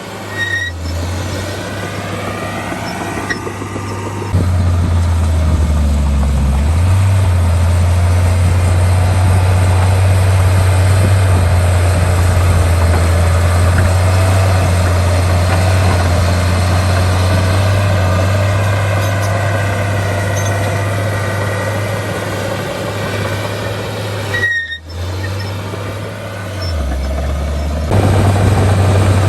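Heavy diesel engines of dump trucks and a bulldozer running under load, a deep steady drone with sudden shifts in level about four seconds in and again near the end.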